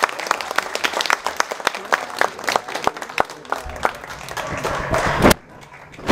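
Small audience applauding, dense clapping that thins out toward the end; a single loud thump about five seconds in, after which the clapping has stopped.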